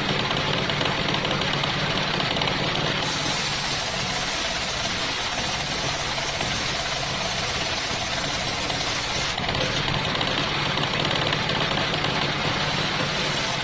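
Homemade engine-driven circular sawmill running steadily. From about three seconds in to about nine seconds, its spinning blade rips along a coconut-wood plank, adding a high hiss to the steady drone.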